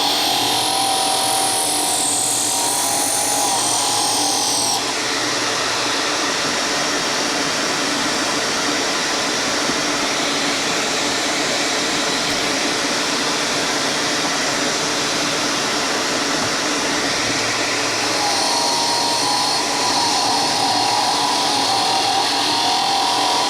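A power tool running, a steady whirring noise with a whine that fades about five seconds in and comes back near the end.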